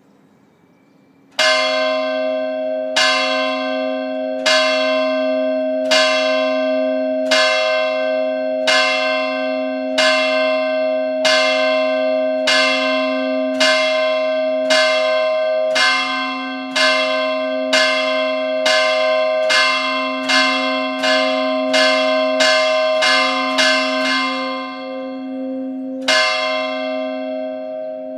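Church bell tolling for Sunday mass: loud strikes about every second and a half, each ringing on into the next, then quickening into a fast run of strikes before a short pause and one last strike near the end.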